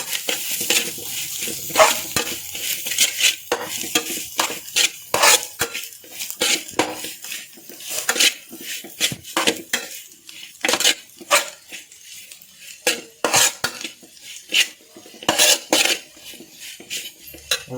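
A utensil stirring and scraping chopped chicken with spices around a hot pan, with many irregular clinks and scrapes against the pan over a light sizzle that thins out after the first couple of seconds.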